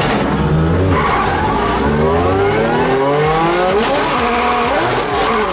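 Race car engine under hard acceleration, its pitch climbing and dropping back several times as it shifts through the gears. This shows the shifting fault the owner puts down to the throttle body blade sticking partly open.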